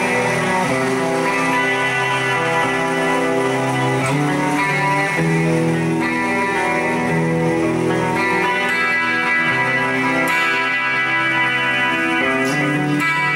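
Epiphone Les Paul Special I electric guitar played through a Boss eBand JS-10 effects processor: held notes and chords that change every second or so, with effects on the tone.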